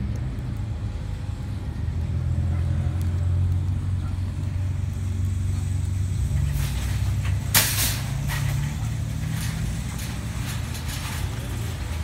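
A motor vehicle engine running with a steady low hum, and a brief sharp hiss about seven and a half seconds in.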